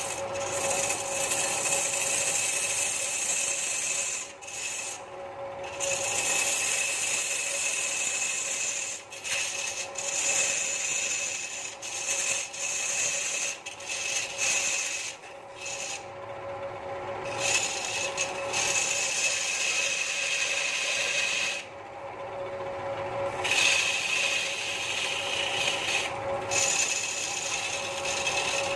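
Turning tool cutting into a large wooden stool blank spinning on a belt-driven wood lathe: a scraping cut in long spells broken by short pauses, over a steady hum from the running lathe.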